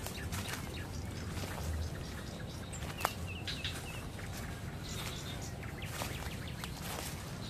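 Footsteps crunching and brushing through dry leaf litter and undergrowth, with a quick run of small bird chirps about three seconds in.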